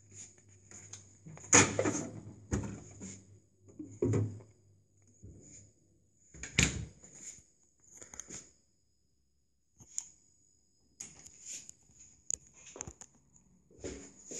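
Scattered knocks and thuds, a second or more apart, the loudest about one and a half, four and six and a half seconds in.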